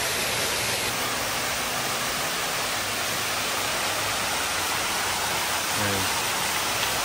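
Fountain jets splashing down into the fountain's pool: a steady rush of falling water.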